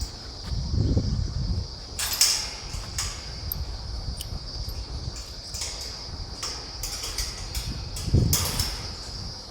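Insects, crickets by the sound of it, trilling steadily. Two short rustling scrapes, each with a low thump, come about two seconds in and again near the end.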